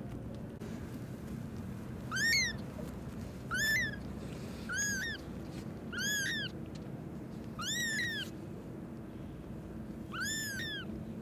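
Newborn kitten mewing: six short, high-pitched cries, each rising then falling, one every second or two, over a low steady background noise.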